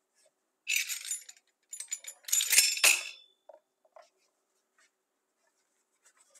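Cut strips of thin, dry baklava phyllo sheets rustling and crinkling as they are handled and stacked. The sound comes in two short bursts in the first three seconds, the second louder, followed by a few faint taps.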